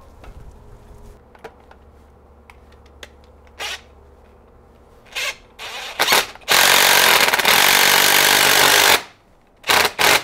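DeWalt DCF887 20V XR cordless impact driver tightening the screw of a worm-drive hose clamp on a coolant hose. After some light clicks of handling come a few short trigger blips, then a run of about two and a half seconds, then two quick blips near the end.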